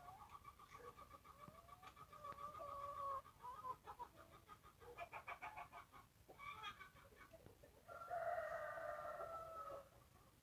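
Chickens clucking in short bursts, then a rooster crowing once near the end, a single held call of about two seconds.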